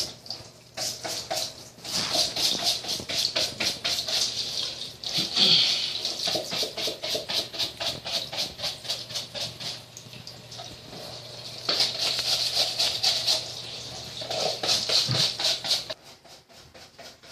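Rapid back-and-forth scrubbing on a dirty front-loading washing machine, about five strokes a second in long runs, with a short pause partway through. A steady low hum lies under the strokes until near the end.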